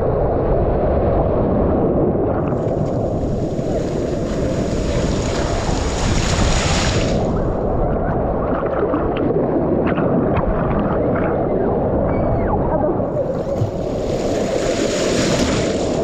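Turbulent water of a water-park wild river ride rushing and churning, loud and steady, with two louder surges of splashing spray, one from about three seconds in and another near the end.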